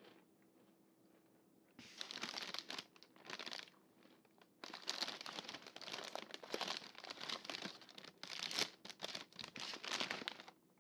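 Snack packaging crinkling as it is handled, in two stretches: a short one starting about two seconds in, then a longer one after a brief pause that stops just before the end.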